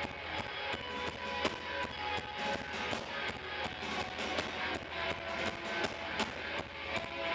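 Live rock band playing: strummed electric guitars, bass and a drum kit keeping a steady beat.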